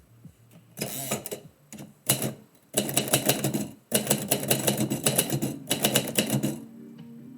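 Typewriter keys clattering in quick runs of keystrokes, in several bursts separated by short pauses, stopping shortly before the end.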